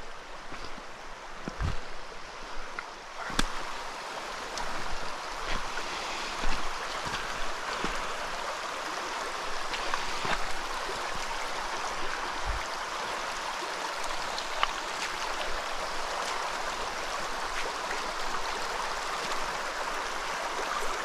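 Small rocky mountain stream running steadily over rocks, with a few scattered knocks and thumps mostly in the first few seconds.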